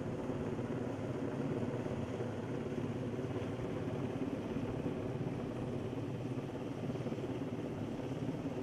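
UH-60 Black Hawk helicopter hovering with a sling load, its rotor and turbine engines giving a steady, continuous drone.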